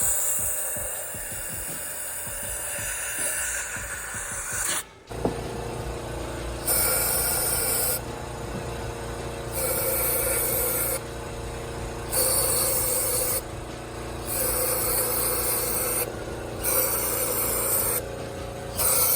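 Aerosol brake cleaner hissing as it is sprayed into an oil-fouled spark plug well on a BMW engine. There is a longer spray first, then five bursts of about a second each, flushing the leaked engine oil out of the plug hole.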